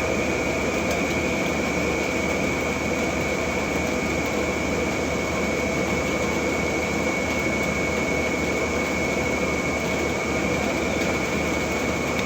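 Heavy truck's diesel engine running steadily under load on a steep climb, with a high, steady whine over the engine note.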